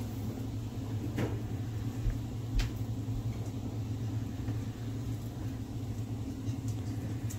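Steady low hum, with two faint clicks about one and two and a half seconds in.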